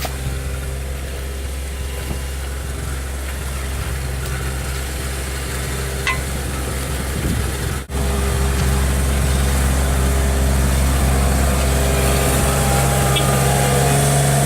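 Construction machine engine running steadily at an even pitch. About eight seconds in the sound drops out for an instant and comes back louder.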